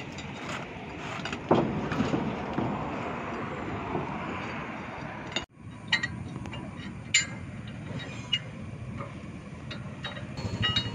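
Scattered metal clinks and taps from hand tools (wheel-nut socket and bar, jack) being handled during a truck wheel change, over steady outdoor background noise. The sound drops out for a moment about halfway.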